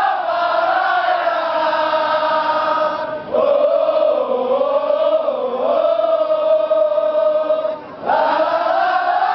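A large group of male soldiers chanting a military yel-yel in unison, in long drawn-out sung phrases that bend slowly in pitch, with brief breaks about three seconds in and again about eight seconds in.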